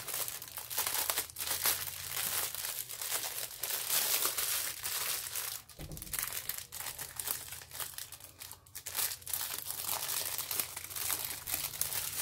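Clear plastic wrapping crinkling as hands unwrap and handle a bundle of small plastic bags of diamond painting drills, with a short lull about six seconds in.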